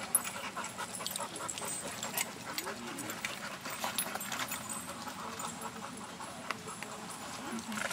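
Dogs milling about in a dog park, with many scattered light clicks and faint voices in the background.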